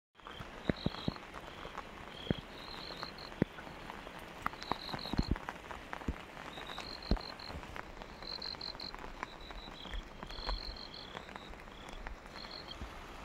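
Frogs calling in short rapid trills, two slightly different pitches trading calls every second or two, with scattered sharp taps in between.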